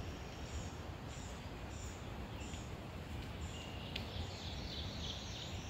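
Songbirds chirping in the background: short, high chirps repeating every half second or so over a steady outdoor hiss.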